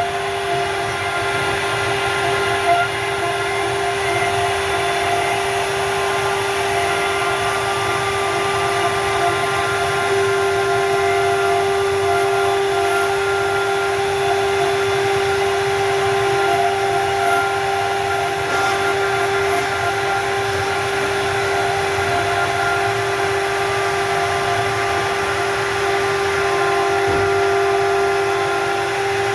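CNC wood router's spindle running with a steady, unbroken high whine.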